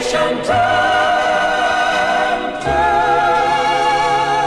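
Music with singing: long held sung notes over a backing accompaniment, moving to a new chord with a bass entering about two and a half seconds in.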